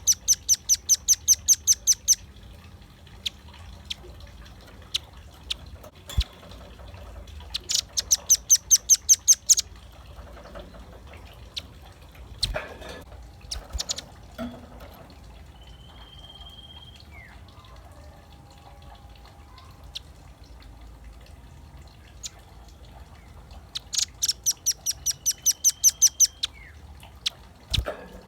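Velvet-fronted nuthatch calling in rapid runs of high, sharp repeated notes, about ten a second. Three runs of about two seconds each, with scattered faint chirps between them.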